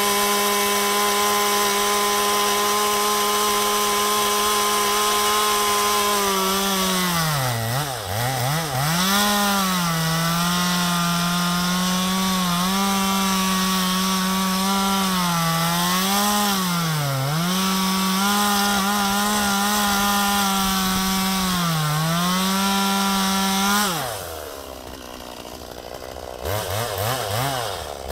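Ryobi two-stroke gas chainsaw running at full throttle through a log, its pitch dipping several times as the chain bites and the engine labours under load. About four seconds from the end it drops to idle, then revs back up near the end.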